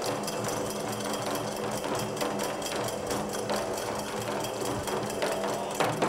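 Nanbu kagura accompaniment: a taiko drum and small hand cymbals playing a fast, even, driving beat.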